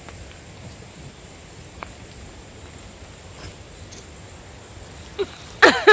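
Quiet outdoor background with a steady high-pitched insect drone. Near the end comes a short, loud, high-pitched cry from a voice.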